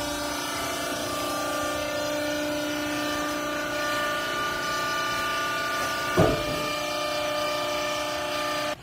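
Hydraulic power unit of a semi-automatic used-clothes baler running with a steady whining hum, with a single knock about six seconds in; the hum stops suddenly near the end.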